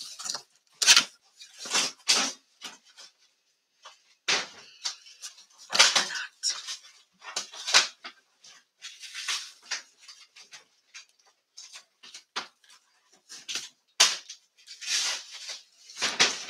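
Cardboard box being cut and opened with scissors: a string of short, sharp scrapes, snips and crinkles of tape and cardboard, with pauses between them.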